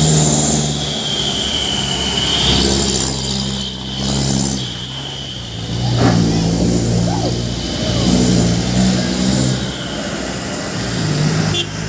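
Loaded diesel truck engine labouring up a steep climb in low gear, its note rising and falling as it pulls. A second truck's engine passes near the end.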